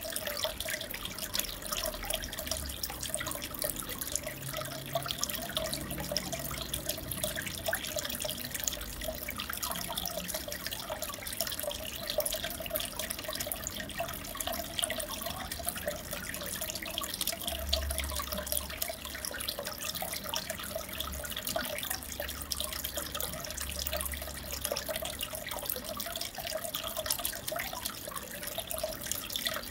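Aquarium water trickling and splashing steadily, a dense patter of small drips and bubbles.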